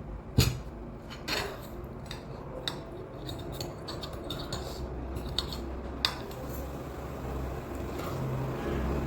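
Eating utensils clicking against a bowl of ramen: one sharp knock about half a second in, then several lighter clicks at uneven intervals.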